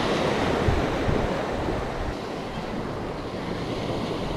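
Ocean surf breaking on a beach and washing up the sand, a steady rush, with wind buffeting the microphone in low rumbles, strongest in about the first second.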